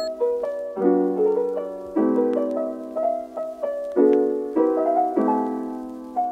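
Background piano music: soft chords struck every second or so, each left to ring and fade.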